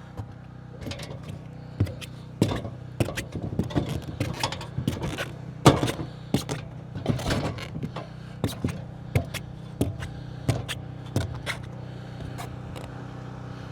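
Irregular knocks, clunks and scrapes of boots on ladder rungs and roof boards as someone climbs a ladder onto a roof, over a steady low hum.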